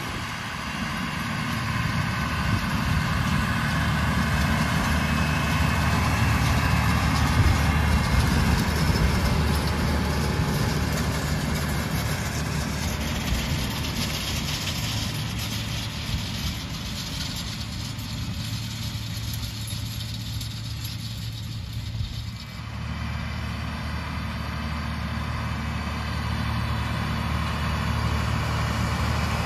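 John Deere tractor's diesel engine running steadily, with a brief dip and a change in its note about three-quarters of the way through.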